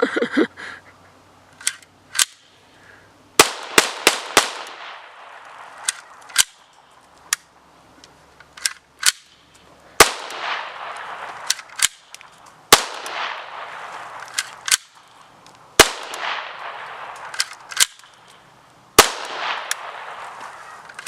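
PPS-43C firing 7.62×25 mm Tokarev surplus rounds as single shots at an irregular, halting pace, with gaps of up to a few seconds between sharp reports. The louder shots have an echoing tail.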